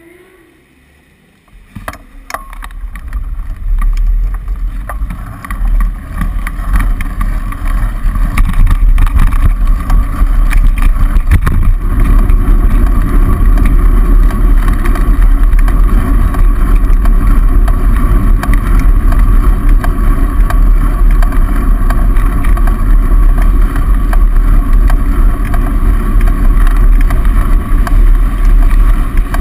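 Wind buffeting a bicycle-mounted action camera's microphone while riding among car traffic: a loud, steady low rumble with road and traffic noise, starting about two seconds in after a short quiet stretch.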